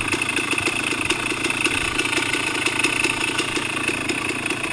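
Engine running at a steady idle with a rapid, even knocking through it: the strange noise the owner traces to the bottom end, the crankshaft and connecting rod area.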